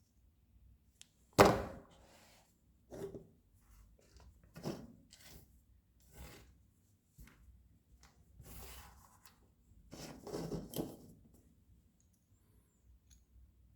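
Small alloy parts of a 1:2 scale miniature Colt 1911 being worked apart by hand: scattered clicks, scrapes and light knocks, the sharpest about a second and a half in.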